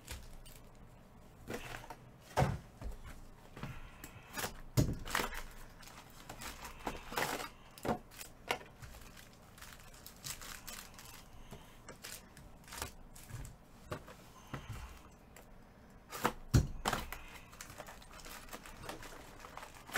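Trading card packs and boxes being opened by hand: wrappers tearing and crinkling, with scattered light knocks and clicks, the loudest about two and a half, five and sixteen and a half seconds in.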